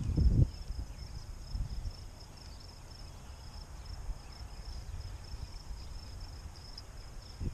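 A steady high, finely pulsing chorus of insects trilling, over a low rumble of wind on the microphone that is strongest at the very start.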